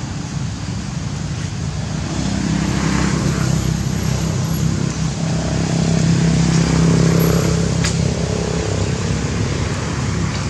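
A motor vehicle's engine running close by: a low, steady hum that swells over several seconds and eases off near the end.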